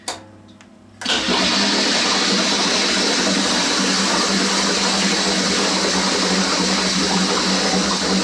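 A keg disconnect clicks onto a keg post, then about a second in, pressurised CO2 suddenly rushes through two homebrew kegs linked in series and out a hose into a bucket: a loud, steady hissing rush with bubbling, the kegs being purged.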